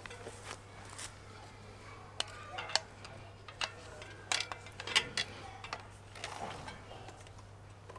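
Irregular light clicks and taps of hands working a plastic syringe and filler tube at a Rohloff Speedhub while drawing the old oil out. The loudest clicks fall about 2.7 and 5 seconds in.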